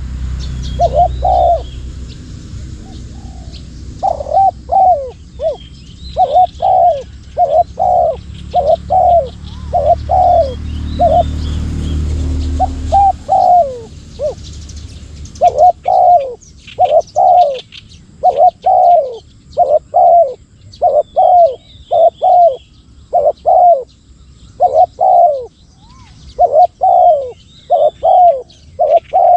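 Spotted doves cooing, repeated short phrases of low coos, with faint small-bird chirps higher up. A low rumble runs underneath for the first half and stops about halfway through.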